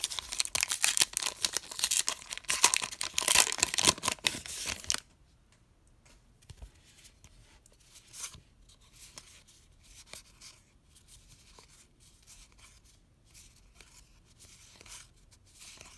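Foil wrapper of a Topps Heritage baseball card pack being torn open and crinkled for about five seconds, then it goes much quieter, with faint soft clicks and rustles of cardboard cards being thumbed through one by one.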